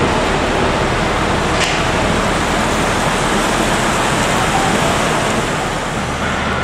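Steady traffic noise of cars driving past on a wet road, an even rushing hiss of tyres on wet pavement.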